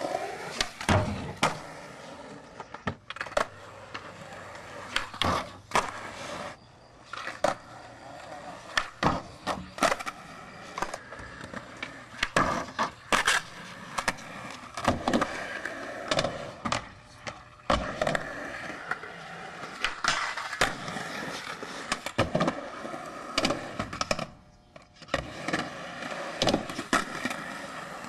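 Skateboard wheels rolling on smooth concrete, with frequent sharp clacks of the board popping, landing and striking the ground and obstacles.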